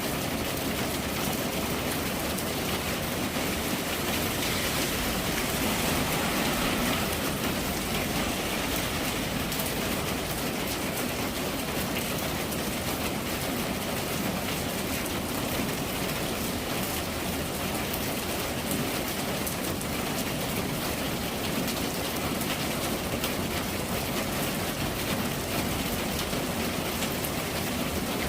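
Steady rain falling and pattering on surfaces, an even hiss of many drops.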